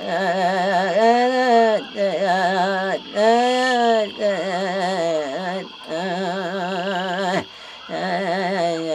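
A single voice singing a chant in held notes, each wavering in pitch and about a second long, with brief breaks between phrases, over a steady high-pitched hum.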